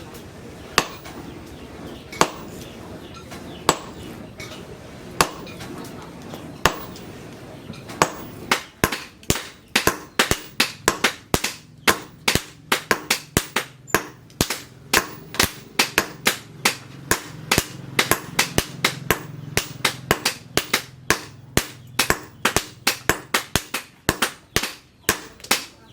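Hammer blows on metal at the anvil while forging an axe: a few single blows about a second and a half apart, then from about eight seconds in a fast, steady run of ringing strikes, about three a second.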